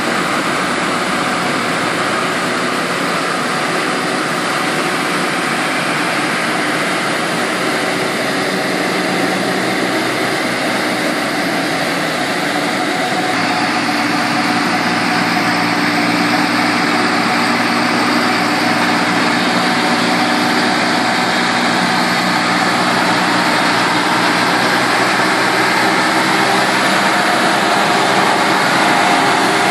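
A Kubota compact tractor's engine running steadily while driving the air blower of a trailed VMA electrostatic mist sprayer, which hisses as it blows out spray. The mix of engine and blower changes slightly about 13 seconds in.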